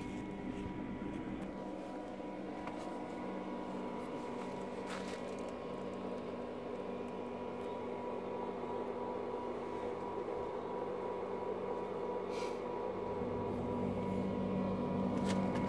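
Intex sand filter pump running: a steady electric-motor hum with several held tones, growing a little louder near the end.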